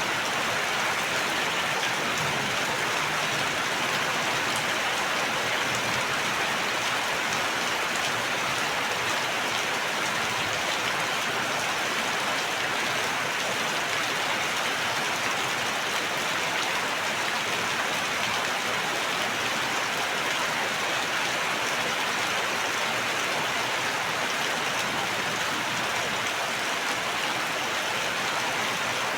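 Steady rain falling and pattering on surfaces, an even hiss with no thunder.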